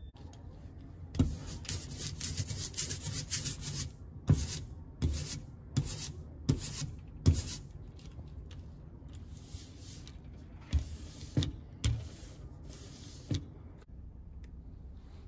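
Hand ink roller (brayer) worked back and forth through printing ink on a glass slab, a hissing rasp with each stroke. The strokes come quickly at first, then singly under a second apart, with a few more near the end.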